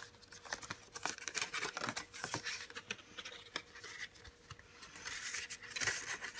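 Thin card and paper rustling, with irregular small clicks and taps, as an Apple documentation folder is opened and its leaflets are leafed through. It gets busier near the end.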